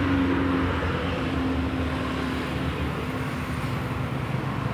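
Steady road-traffic noise: a motor vehicle's engine hum that fades out about two-thirds of the way through, over a general rumble.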